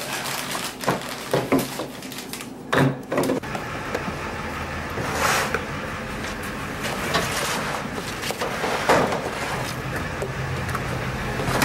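Knocks, thuds and scrapes of plastic storage bins being set down and slid into a pickup truck's bed, a handful of separate bumps spread across several seconds. A low steady hum comes in near the end.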